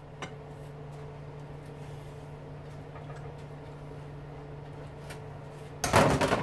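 Steady low hum with a few faint taps, then near the end a short, loud rattling clatter of electric lawnmower motor parts being handled during the teardown.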